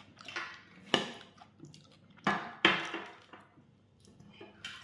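Dishes and cutlery clattering at the end of a meal: a sharp clink about a second in, then two more close together a little past two seconds, with small knocks between.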